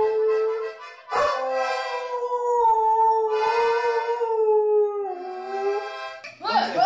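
A dog howling in long drawn-out notes along with a child's toy accordion being played.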